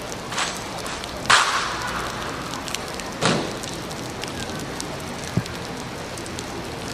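Heavy rain, a steady hiss, broken by a few sharp knocks or slaps. The loudest come just over a second in and about three seconds in.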